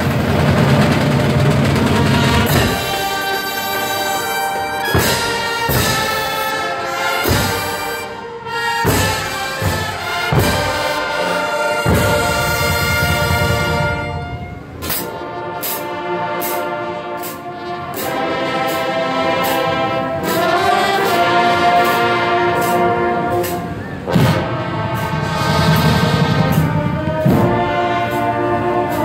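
Live marching band playing: the brass section sounds sustained chords over bass drum and percussion strikes and cymbal crashes, with the drums settling into a steady beat through the second half.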